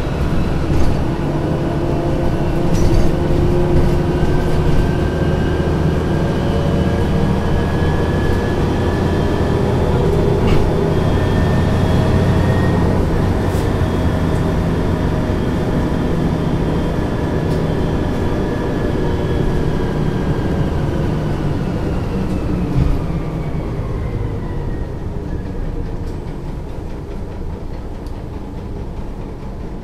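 Büssing DE double-decker bus's diesel engine heard from on board, pulling away with the engine note and a high gear whine rising in pitch. They hold for a while, then fall and grow quieter as the bus eases off and slows near the end.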